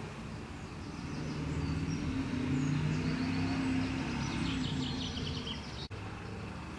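Diesel engine of a MAN fire engine running as it rolls slowly closer, growing louder, with birds chirping over it. The sound drops out for an instant near the end.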